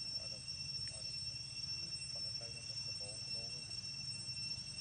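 Outdoor ambience dominated by a steady, high-pitched insect drone, over a low rumble. A few faint, short pitched calls come through about two to three and a half seconds in.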